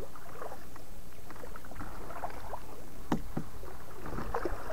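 Kayak paddle strokes: the blades dipping into and lifting out of the water, with scattered splashes and drips, the sharpest about three seconds in, over a low steady rumble.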